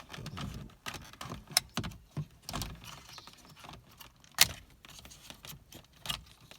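Plastic dashboard trim and its retaining clips being worked loose by hand: a series of irregular clicks, snaps and rattles, the sharpest snap about four seconds in.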